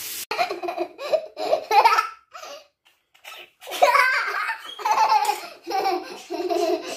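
A young girl laughing in repeated bursts and giggles, with a short pause about halfway through.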